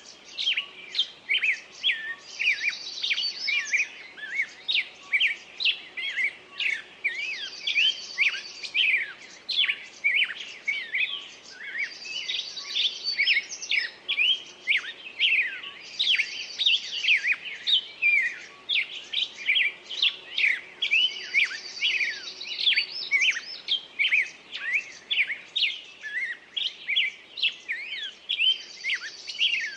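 Small birds chirping and calling busily, many quick short chirps overlapping, with a higher trill coming back every four to five seconds.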